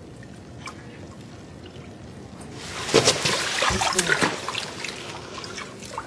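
Bathwater in a bathtub sloshing and splashing as a person moves in it, loudest from about three seconds in. Before and after, there is faint dripping and trickling.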